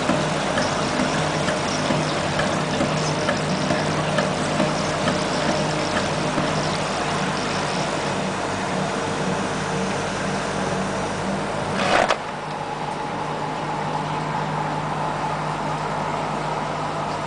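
Automatic printing-plate (cliché) washing machine running: a steady motor hum with the noisy churn of its rotating brush rollers. About twelve seconds in there is a brief loud burst, after which the machine runs on a little quieter with a steadier, higher hum.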